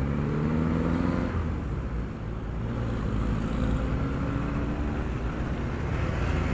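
Motorcycle engine running in city traffic. Its pitch climbs as it accelerates, eases off about two seconds in, then climbs again as it pulls past a jeepney. A steady rush of wind and road noise runs underneath.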